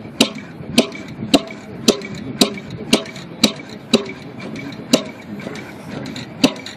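Single-cylinder gas engine driving an oil pump jack, firing with sharp exhaust pops about twice a second and missing a few beats in the second half.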